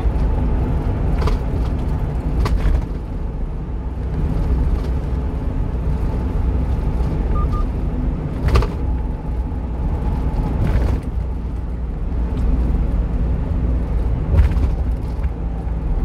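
Steady low drone of engine and road noise inside the cab of a 1-ton refrigerated box truck driving at speed, with a few short sharp knocks or rattles along the way.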